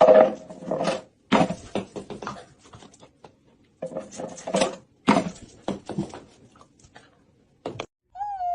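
A pet animal making a string of rough, noisy bursts of sound, five or six in a row. Near the end a single drawn-out high call begins.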